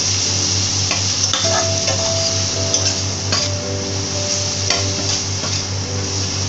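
Ginger paste and ground spices sizzling steadily in hot mustard oil in a steel kadai while a spatula stirs and scrapes them, with scattered clicks of the spatula against the pan. The masala is being sautéed (koshano) before the vegetables go in.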